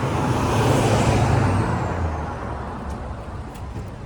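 A motor vehicle going past: a rush of engine and road noise that swells within the first second, then fades away over about three seconds.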